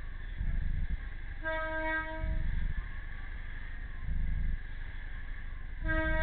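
Train horn sounding from on board the train: one blast of nearly a second about a second and a half in, then a longer blast starting near the end, over a low rumble from the slow-moving train.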